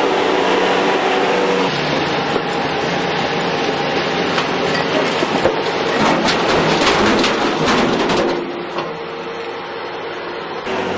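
Bobcat compact track loader's engine running hard, with broken concrete rattling and crashing into a steel truck bed from about four to eight seconds in as the bucket dumps its load. The engine then settles to a quieter steady running.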